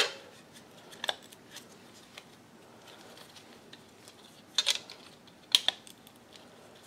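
A few light clicks and taps of a clear plastic control-board housing and its wires being handled, with a small cluster of clicks past the middle.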